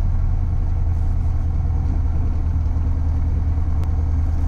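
Piper Arrow's piston engine running at low taxi power, a steady low drone heard inside the cockpit.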